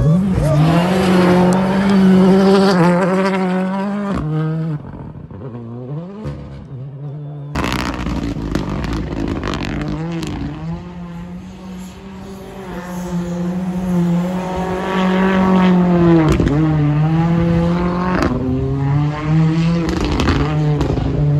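Rally car engines revving hard at high speed, one car and then another after a change at about 7.5 s. The engine note holds high, then drops sharply and climbs again at each gear change or lift, with the clearest dips at about 10 and 16 seconds.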